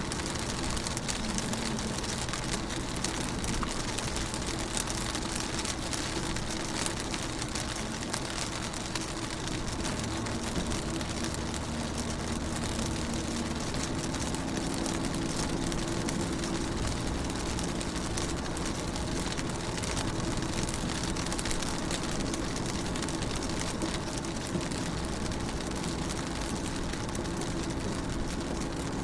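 Rain falling on a car's window in a dense, even patter of drops, over a low steady hum.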